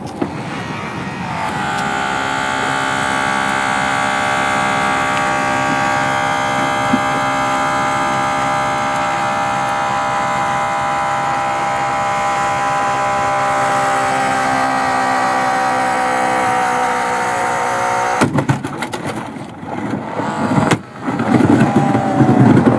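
Holmatro hydraulic rescue cutter closing on a flat steel car-door hinge: its power unit runs with a steady whine under load for most of the cut, easing slightly in pitch near the end. It stops abruptly, then a few seconds of metal clanks and knocks follow as the door comes free.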